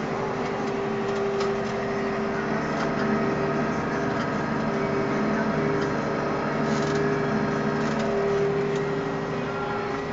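Renault Ares 640 tractor's diesel engine running steadily under load as the tractor drives over and packs down grass on a silage clamp.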